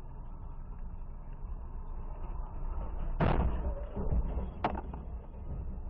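Car crash heard from inside the dashcam car: a loud impact about three seconds in, then a second sharp bang over a second later, over a steady low cabin road-noise rumble.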